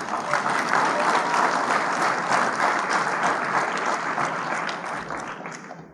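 Audience applauding, a dense patter of many hands clapping that starts abruptly and dies away near the end.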